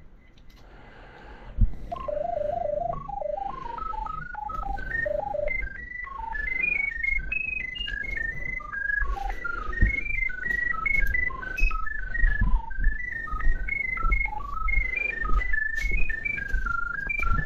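Pipe locator's tone homing on the drain camera's sonde: a string of short beeps that change pitch in steps, starting low about two seconds in, climbing over a few seconds, then wavering up and down near the top as the signal strength rises and falls. Low rumble and a few thuds sit underneath.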